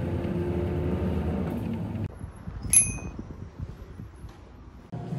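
Steady low rumble of a car's road and engine noise heard from inside the moving car, which cuts off about two seconds in. Quieter street sound follows, with a single short, high metallic ding a little later.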